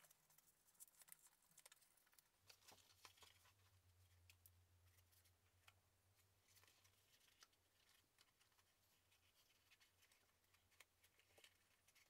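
Faint rustling, light clicks and creases of thin card and paper being folded and pressed by hand into a small box.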